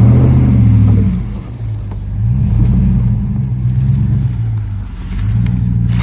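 Off-road vehicle's engine revving in three surges while crawling an obstacle. Each surge swells and then eases, and the first, at the start, is the loudest.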